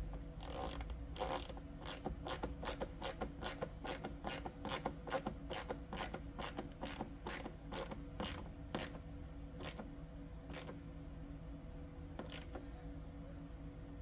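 Hand ratchet fitted with a T25 Torx bit clicking as it drives a door-trim screw home: a steady run of about three clicks a second that thins out and stops, with one last click near the end.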